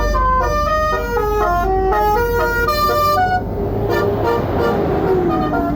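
A bus's 'telolet basuri' musical horn playing a quick melody of short stepped notes, which stops about three seconds in. After it comes a noisy spread with a lower tone sliding down near the end.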